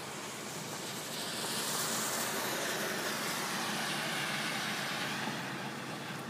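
A vehicle passing on a wet road: the hiss of its tyres swells about a second in and fades again near the end.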